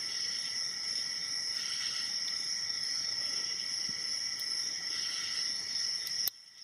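A steady high-pitched whine of several constant tones over a hiss, with a few faint clicks of a hook pick working the pins of a padlock. The sound drops away abruptly near the end.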